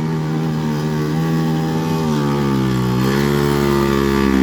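Vespa scooter's engine labouring up a steep climb with two riders aboard. The engine note sags about two seconds in, then picks up again near the end.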